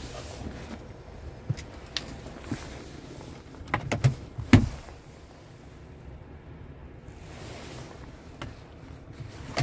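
Under-bunk fridge drawer in a truck cab being handled and pulled open: a few light clicks, then a cluster of knocks with the loudest about halfway through, and another sharp knock at the end.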